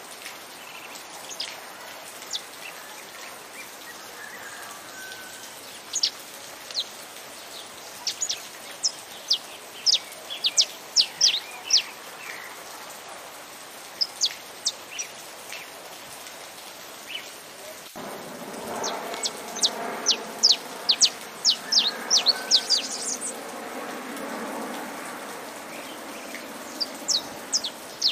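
Saffron finch singing in clusters of quick, sharp high chirps over a steady rain hiss. About 18 seconds in there is a click, and a fuller, lower rain noise joins.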